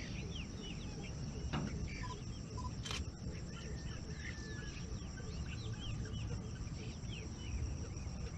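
A flock of water birds calling: many short, rising and falling calls overlapping continuously, over a low rumble.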